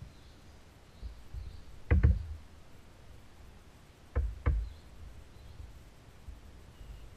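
Two quick double knocks against the plastic hull of a sit-on-top kayak, the first about two seconds in and the second a couple of seconds later, over a low rumble of wind on the microphone.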